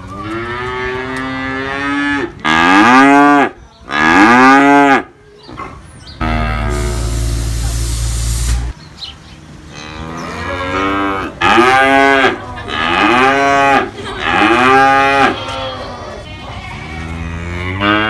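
Young calves mooing over and over, about eight drawn-out moos that rise and fall in pitch, some long and some short. A rush of noise breaks in for a couple of seconds in the middle.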